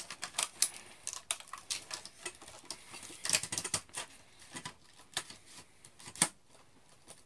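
Irregular plastic clicks, knocks and rattles as the front handguard of a CYMA G36C airsoft rifle is worked back into place over the battery, with a dense run of clicks about three and a half seconds in and a single sharp click near the end.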